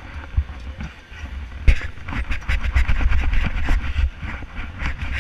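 Handling noise on the camera: clothing rubbing and knocking against it over a low rumble, with a quick, irregular run of knocks and scrapes from about a second and a half in that cuts off suddenly at the end.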